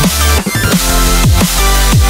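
Background electronic music with a heavy bass: a deep falling bass sweep repeats about every two-thirds of a second under steady chords.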